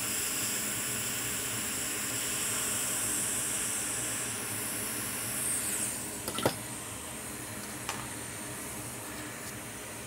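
Hot air rework station blowing steadily while desoldering the shorted GPU power MOSFETs from a MacBook Pro logic board; about six seconds in the air noise sweeps down and drops away as the parts come off, followed by a few sharp clicks.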